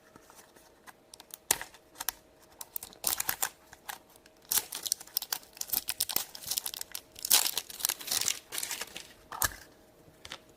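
Crinkly plastic blind-bag packaging being torn open and crumpled by hand in irregular bursts, with a few sharp clicks, to get at a squishy toy figure.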